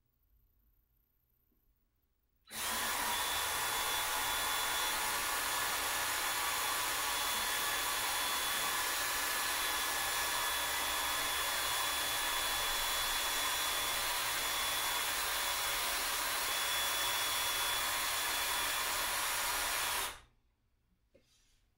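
Handheld power drill running steadily, twisting plastic-bag strands into rope. It starts about two and a half seconds in and stops suddenly near the end.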